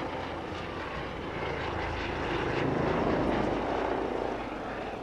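Low-flying REACH air-ambulance helicopter passing overhead: its rotor and engine noise grows louder to a peak about three seconds in, then fades.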